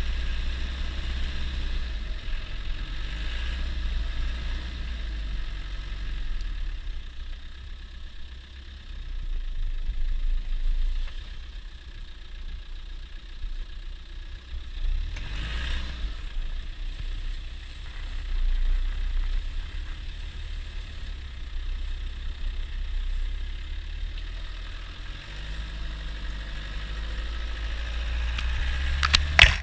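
Land Rover Defender 90 running on the trail: a steady low engine drone that swells and eases in loudness, with a brief burst of noise about halfway through and a few sharp clicks near the end.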